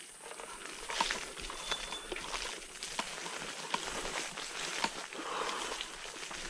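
Leaf litter and sticks crackling and rustling as an electric scooter is moved over rough forest ground, with a few sharp knocks and snaps.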